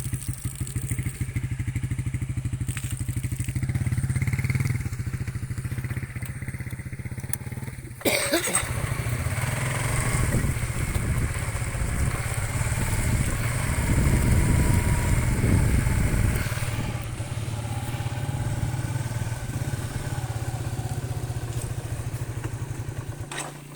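Small motorcycle engine running steadily with its firing pulse, as bikes are ridden through flood water. About eight seconds in a sharp knock comes, then a louder rushing noise joins the engine, swelling to its loudest a little past the middle before easing off.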